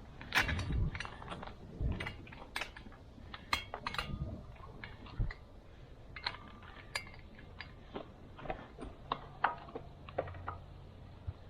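Scattered metallic clicks and clinks of hand tools being handled, with a few dull knocks in the first few seconds.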